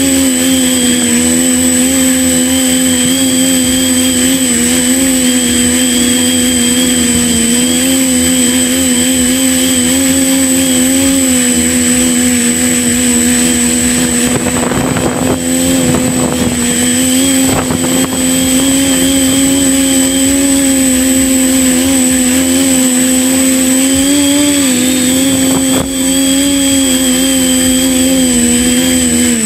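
Quadcopter's electric motors and propellers whining steadily, heard close from the on-board camera, the pitch wavering slightly as it manoeuvres. A brief rush of noise about halfway through.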